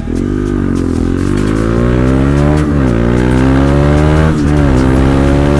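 Bajaj Dominar motorcycle's single-cylinder engine and exhaust accelerating hard. Its pitch climbs steadily, drops abruptly twice on upshifts, and climbs again.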